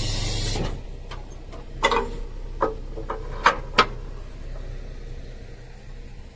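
A car-carrier trailer's powered deck-lowering unit whirring steadily, cutting off just under a second in as the deck stops. Then about seven sharp metallic clicks and knocks over the next three seconds, over a low steady hum.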